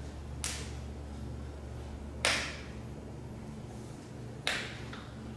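Hands slapping together sharply three times, about two seconds apart, over a steady low room hum.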